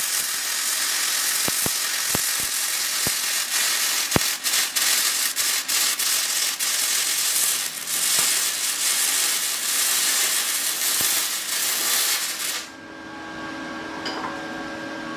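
Flux-core arc welding from a small 200-amp welder: the arc hisses and crackles with sharp pops of spatter, then stops suddenly near the end, leaving a steady hum.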